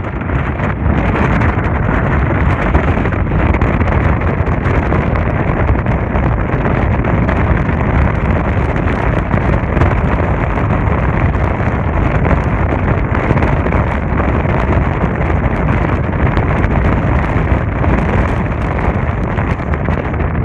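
Wind blowing across the microphone: a loud, steady rushing rumble with no let-up.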